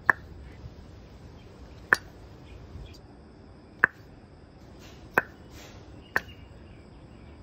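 Five short, sharp pops, spaced one to two seconds apart, as a fingertip is pressed to the valve openings of a bare cylinder head and released.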